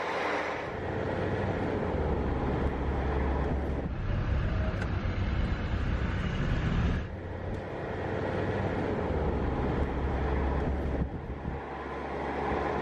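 Road and engine noise of a moving vehicle, a steady low rumble that changes abruptly a few times.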